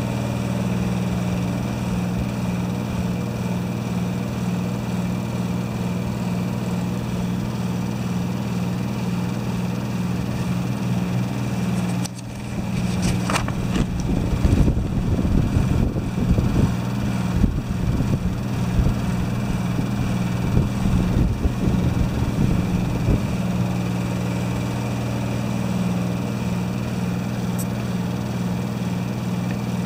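A steady low machine hum with a regular pulse. From about 12 to 24 seconds in, irregular knocks and rustles of handling are laid over it.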